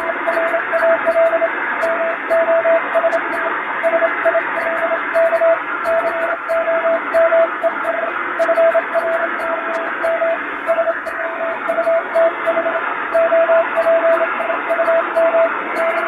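Morse code sent by hand on a telegraph key: a single steady tone keyed in dots and dashes, spelling out a plain-language English telegram, buried in hiss with shortwave-style noise and fading. The key's contacts click faintly with each element.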